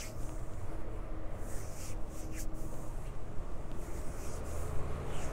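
Soft, intermittent swishing of a hand rubbing oil into the skin of the forearm, over a steady low background hum.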